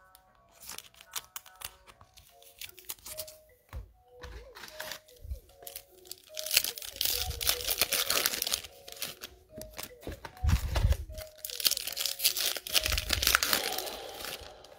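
Foil wrapper of a Panini Prizm basketball retail card pack being torn open and crinkled by hand, after a few light taps. The crackling comes in loud bursts from about six seconds in, over quiet background music.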